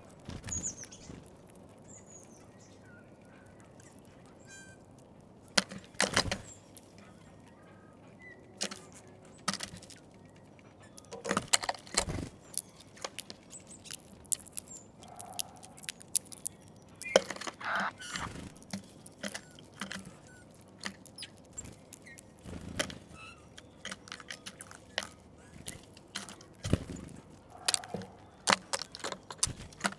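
Eurasian bullfinches at a seed feeder: irregular clicks and taps, some in quick clusters, from sunflower seeds being cracked and from beaks and feet on the feeder, with a few faint bird calls.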